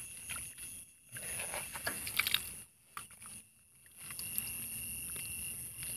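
Shallow pond water sloshing and splashing in uneven spurts as hands rummage through floating water plants, with short pauses between. A steady high-pitched chirring of night insects runs underneath.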